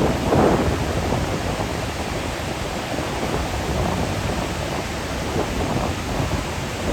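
Ocean surf breaking on the beach, a steady roaring wash of waves.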